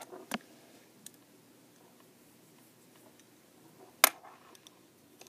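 Knitting needles clicking as stitches are worked: a few faint clicks, then one sharp, loud click about four seconds in, with little else between.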